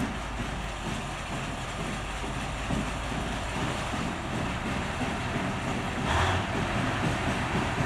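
TU2 narrow-gauge diesel locomotive's V12 diesel engine running with a steady low rumble, freshly started after repair. About six seconds in comes a brief, louder burst of noise.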